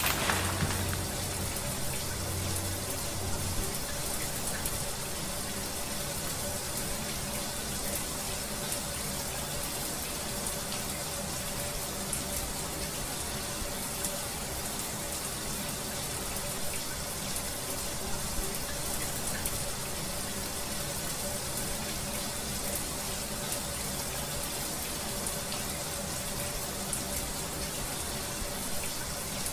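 Shower water running steadily, the spray hissing down into the tub and drain.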